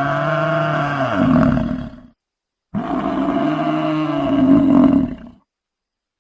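Buffalo bellowing: two long drawn-out calls, the first ending about two seconds in and the second starting after a short pause and fading out near the end.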